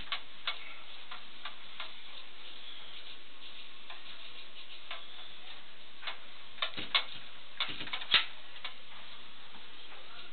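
Scattered light clicks and taps at irregular intervals over a steady hiss, with a cluster of louder clicks about two-thirds of the way through.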